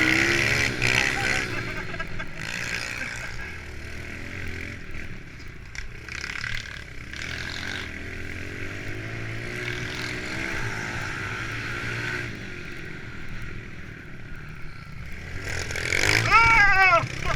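Small single-cylinder four-stroke pit bike engines running and revving up and down as the bikes ride a track. One bike revs loudly close by near the end.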